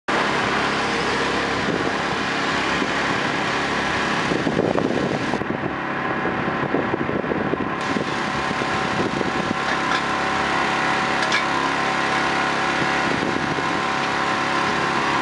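Small engine of a hydraulic power pack running steadily at a constant speed, with a few light knocks of metal tools over it.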